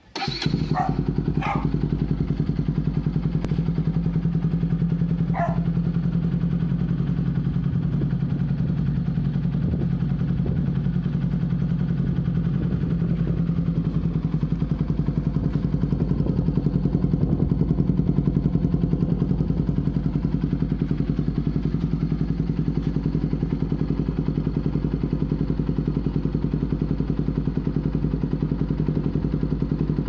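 Motorcycle engine idling steadily through an aftermarket Austin Racing slip-on exhaust; it comes in suddenly at the start and then holds an even idle with no revving.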